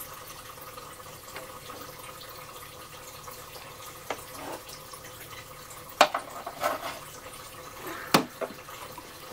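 Engine coolant trickling steadily from the radiator drain into a container on the floor. A few sharp clicks from work on the engine come in the second half.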